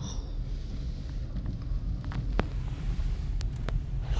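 A car driving slowly, its low road and engine rumble heard from inside the cabin, with a few faint sharp ticks.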